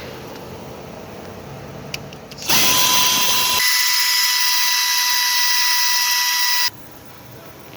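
Compressed-air tool running at full speed for about four seconds: a loud, steady hissing whine that starts and stops abruptly.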